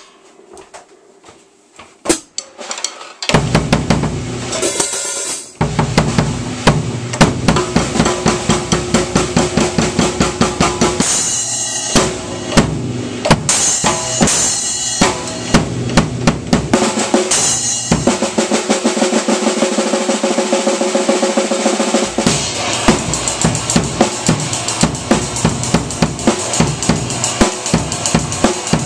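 Acoustic drum kit being played: a fast, busy beat on snare and bass drum with fills and cymbal crashes. It starts about three seconds in, after a single hit.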